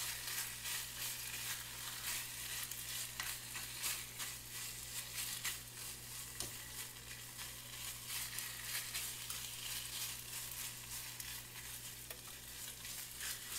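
Seasoned sliced deli turkey frying in a pan of hot vegetable oil: a steady sizzle with crackles, while a fork pulls the slices apart in the pan.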